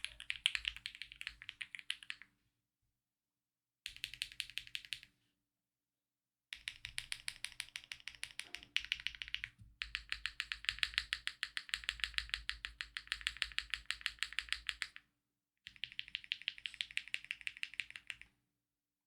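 Typing on a custom 60% mechanical keyboard with Akko V3 Cream Blue switches, GMK keycaps and a brass plate, tape-modded for a deeper sound. Fast runs of keystrokes clatter in several bursts broken by short silences.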